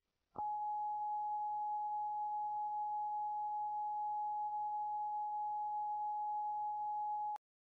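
A single steady electronic tone, held unwavering for about seven seconds, starting and cutting off abruptly.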